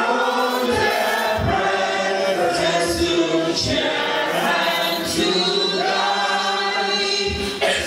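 A small group of women singing a church song together in long held notes, with a soft low thump keeping time about every three-quarters of a second.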